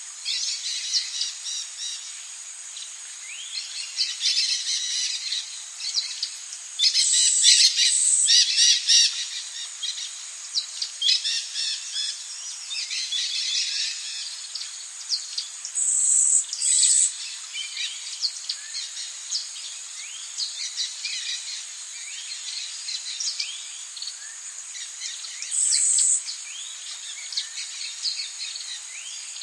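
Tropical birds calling and chirping in quick, overlapping phrases over a steady high-pitched insect drone, with louder high bursts about 7 seconds in, at the middle and near the end.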